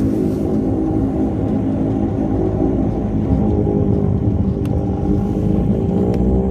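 Dash 8 turboprop's engines and propellers droning through the cabin during the takeoff roll, the tone rising in pitch about halfway through, over a low rumble from the main-gear tyres rolling on the runway.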